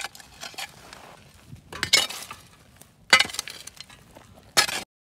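A spade scraping into stony soil, three strokes roughly a second and a half apart with small stones clinking, then the sound cuts off suddenly.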